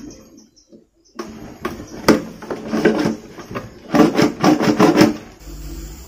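Plastic parts of a toilet cistern's flush mechanism knocking and clattering as they are handled and fitted by hand, in two busy spells of quick knocks.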